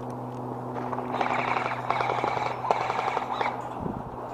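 Airsoft guns firing on full auto: a rapid stream of sharp clicking shots, starting about a second in and lasting about two and a half seconds, over a steady low hum.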